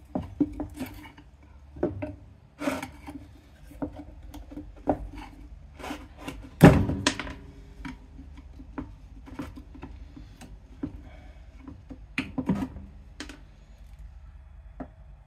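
A hammer tapping a screwdriver, used as a chisel, against the metal housing of a small PTAC electric motor to split it apart, giving irregular metallic knocks and scrapes. The hardest blow comes about six and a half seconds in and a quick run of knocks near twelve seconds, with fewer toward the end.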